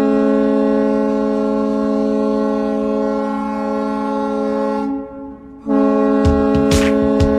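Ice hockey arena goal horn blasting a steady, loud chord. It drops away briefly about five seconds in, then sounds again, with a few sharp knocks over it near the end.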